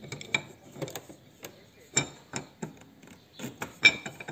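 Irregular metallic clicks and clinks from a hydraulic trolley jack's handle and release valve as the valve is turned closed, with one sharper clank near the end.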